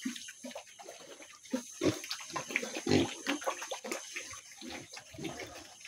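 Pigs eating wet feed: irregular slurping and smacking of mouths in the mash, busiest about three seconds in.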